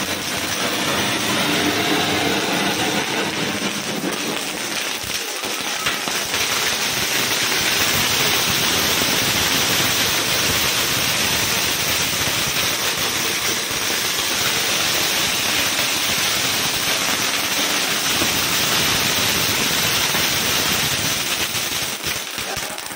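Ground fountain fireworks spraying sparks: a steady, rushing hiss that goes on without a break.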